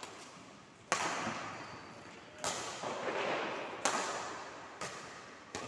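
Badminton rally: rackets hitting the shuttlecock with sharp smacks about a second apart, five in all, the first three the loudest. Each hit rings on in the echo of the sports hall.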